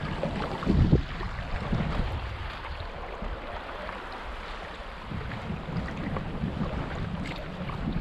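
River water rushing and rippling along a canoe hull through a shallow gravel riffle, with wind rumbling on the microphone. A low thump about a second in is the loudest moment.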